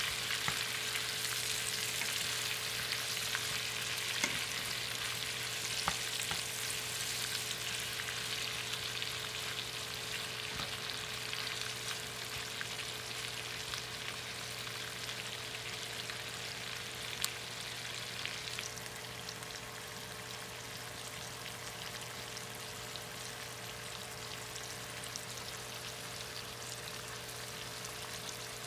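Onions, bell peppers and tomatoes sizzling in a frying pan while being stirred with a wooden spatula, with a few light knocks of the spatula against the pan. The sizzle gets quieter after about 19 seconds.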